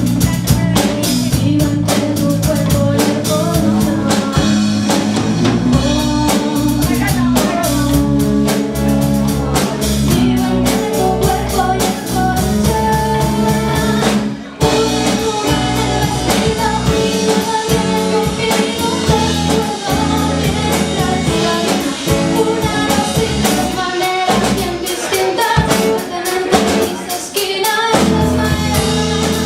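Background music: a song with drum kit and guitar. There is a brief break about halfway through, after which the bass drops away for several seconds before returning near the end.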